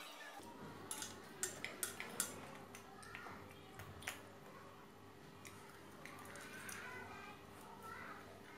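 Metal spoon clicking and scraping against a grilled scallop shell as the meat is scooped out: a quick run of sharp clicks about a second in, another a little before halfway, over a faint steady hum.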